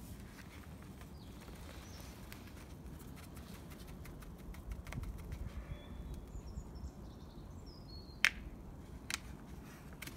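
Faint outdoor ambience: a steady low rumble, with a few short bird chirps about two-thirds of the way through. Several sharp clicks come from handling a small paper seed packet, the loudest near the end.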